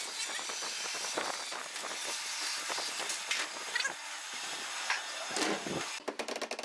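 Thin protective plastic film crackling and rustling as it is peeled off a laminate sheet and bunched up by hand. A quick, even run of clicks near the end.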